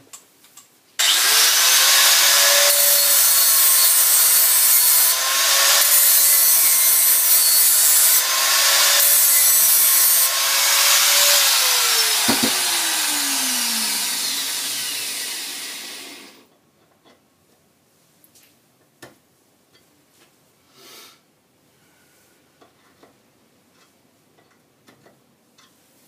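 Power grinder grinding down the tip of a steel Phillips drill bit: a steady motor whine under harsh grinding noise for about eleven seconds, starting about a second in. The motor is then switched off and winds down with a falling pitch over a few seconds, followed by a few faint clicks.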